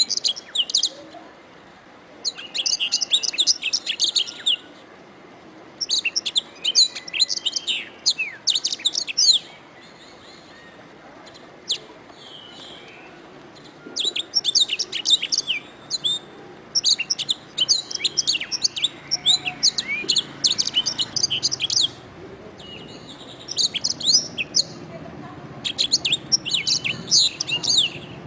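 Canary singing: phrases of rapid high chirps and trills, one to three seconds long, with short pauses between them.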